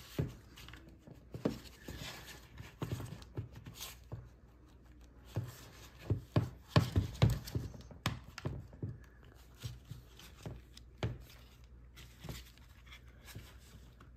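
Red plastic clamshell housing of a BAUER brushless cordless drill being pried and pulled apart by hand: a string of irregular plastic clicks and knocks, busiest and loudest about six to seven and a half seconds in.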